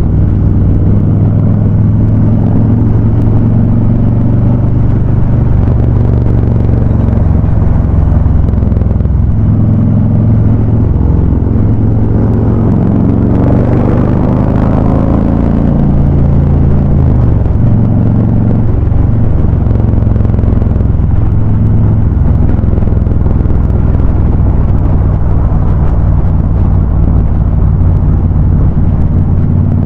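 Harley-Davidson Ultra Classic V-twins running through Vance & Hines High Output exhausts while riding, a loud, steady, deep exhaust rumble. The exhaust note swells and changes pitch briefly about halfway through, as the throttle is worked.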